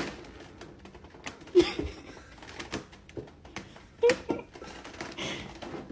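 Thin clear plastic cupcake container crackling and clicking under a cat's paws as it stands in it eating. A few short voice sounds come about a second and a half in and again about four seconds in.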